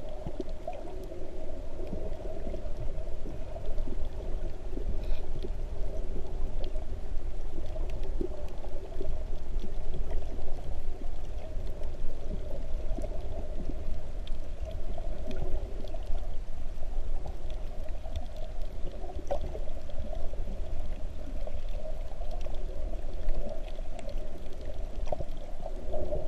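Underwater sound picked up by a GoPro in its waterproof housing: a steady muffled water drone with scattered faint clicks.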